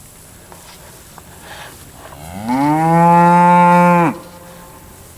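A steer moos once, a long call that rises in pitch at the start, holds steady for nearly two seconds and cuts off sharply, a little past halfway through. A few faint knocks come before it.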